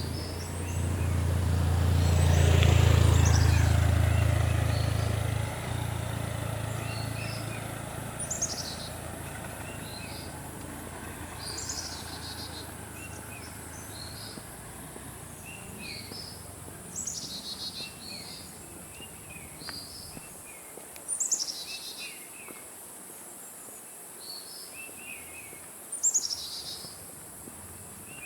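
Forest birds calling: a quick, falling burst of high notes repeats every few seconds, with softer chirps in between, over a steady high insect hiss. In the first few seconds a loud low rumble swells and fades away.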